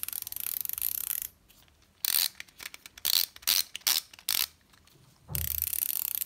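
NovoRapid FlexPen insulin pen's dose mechanism ratcheting, a fast run of fine clicks, while insulin is transferred from the pen into a pump reservoir. The click runs come twice, about a second at the start and again near the end, with a few short separate clicks and handling noises in between.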